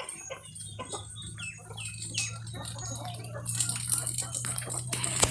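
Chickens clucking and flapping their wings, with a steady low hum underneath.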